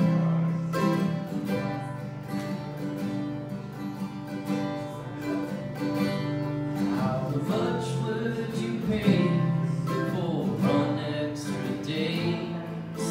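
An acoustic guitar being strummed together with a mandolin being picked: an instrumental passage of a folk song, with steady rhythmic strokes throughout.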